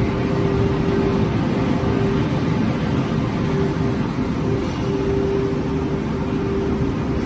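Corrugated-box flexo printer folder gluer running: a steady mechanical din, with a steady whine that drops in and out.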